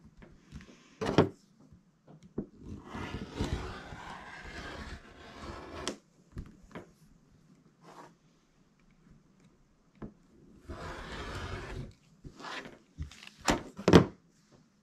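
Handling noise: two stretches of rustling, broken by sharp clicks and knocks. The loudest are a click about a second in and a quick run of clicks near the end.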